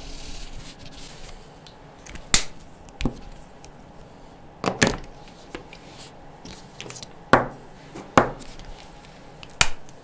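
Jumbo felt-tip markers being capped, set down and picked up: about seven sharp plastic clicks and taps, some in quick pairs, with a soft marker nib rubbing on paper in the first second.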